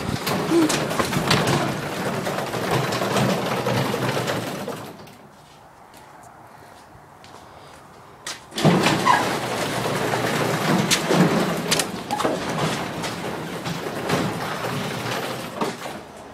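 Craftsman half-horsepower garage door opener running as the door travels, then stopping for about three seconds before starting again suddenly and running on.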